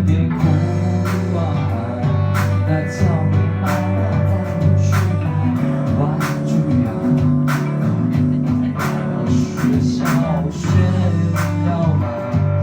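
Live band playing an instrumental passage of a rock song: guitar and bass over drums with regular cymbal and snare hits.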